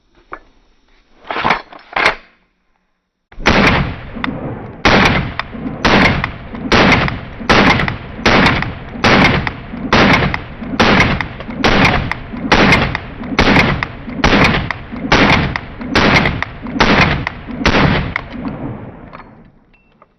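Glock 19 Gen 5 9mm pistol firing: two shots, a pause, then a long string of evenly spaced shots about one a second, each with a long fading tail.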